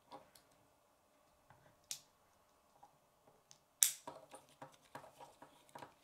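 Plastic K'nex pieces being handled and snapped together: a few sharp clicks, the loudest a snap about four seconds in, followed by a run of quick small clicks and rattles.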